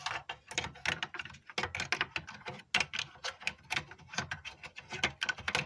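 Rapid, irregular clicking and rattling of plastic and metal parts as a solid state drive is handled and fitted into a desktop PC case.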